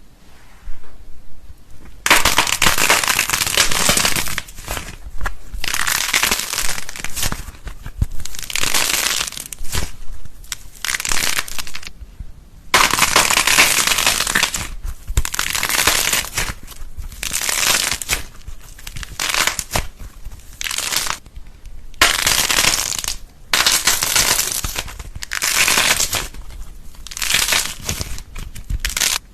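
Crisp crackling and crunching in repeated bursts of a second or two with short pauses between them, from a crunchy material being squeezed, crushed or cut by hand.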